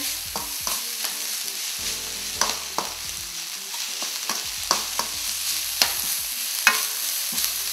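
Diced carrots and green peas sizzling in hot oil in a stainless steel pan, stirred with a metal spatula that scrapes and clinks against the pan at irregular intervals.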